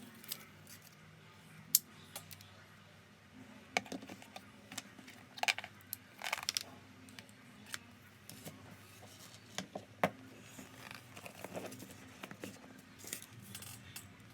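Quiet, scattered clicks, taps and light rustling as an iPad and its packaging are handled, over a faint low hum.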